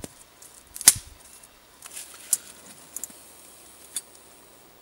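Dry dead striped maple twigs snapped by hand: a handful of sharp cracks, the loudest about a second in and the rest spaced out over the next few seconds.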